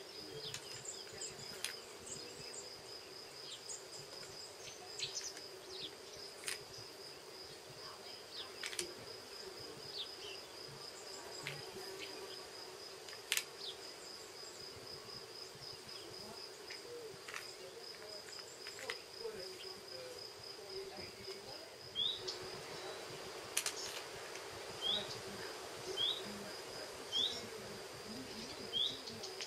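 Ambient insect chorus: a steady high pulsing trill with scattered faint clicks. Near the end, short rising chirps repeat about once a second.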